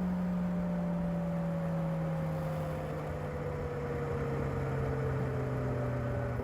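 Kawasaki ZR7S's air-cooled inline-four engine running through its stock exhaust, its note held steady and slowly falling as the revs ease off.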